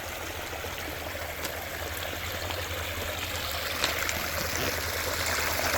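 Water running down a shallow rock-lined stream and spilling over short waterfall drops: a steady trickling and splashing that grows slowly louder.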